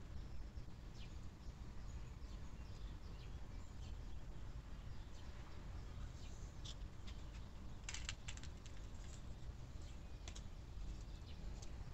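Scattered small clicks and taps of hands handling cucumber seeds and small plastic cups on a stone countertop, with a quick run of clicks about eight seconds in, over a steady low background hum.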